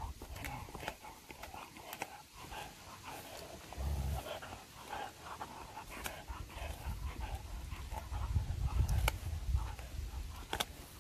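German shepherd gnawing a bone: scattered sharp clicks and cracks of teeth on bone, with panting between bites. Low rumbles come and go, the loudest about eight to nine and a half seconds in.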